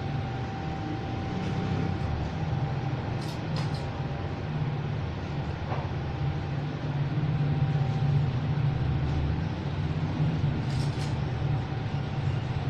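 Steady low background rumble with a faint steady hum above it, broken by a few brief sharp ticks about three and a half seconds in and again near the end.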